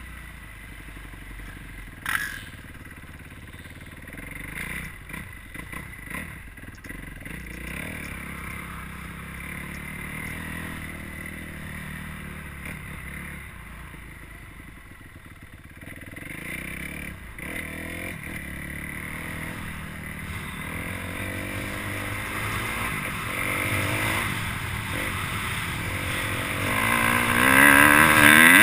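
Motocross dirt bike engine heard from a helmet camera, running at modest revs, then picking up speed, with the revs rising and the engine at its loudest near the end. A single sharp knock sounds about two seconds in.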